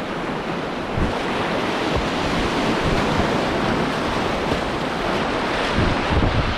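Whitewater rapids rushing and splashing around a kayak, heard from water level with low buffeting on the microphone; the rush grows louder about a second in.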